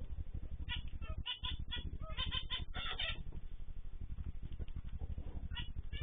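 Aviary cage birds calling: a quick run of chirping calls from about one to three seconds in, and one more call near the end. A steady low buzz runs underneath throughout.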